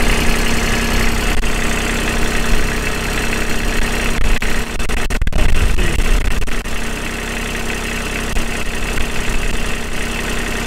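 Kubota RTV900's three-cylinder diesel engine running steadily at idle.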